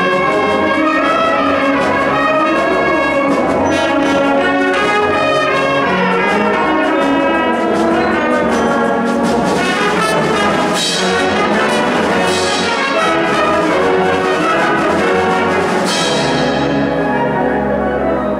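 School wind band playing a loud, full passage, brass to the fore, with woodwinds and percussion. About sixteen seconds in, a sharp accent reaches high up, then the highest sounds fade.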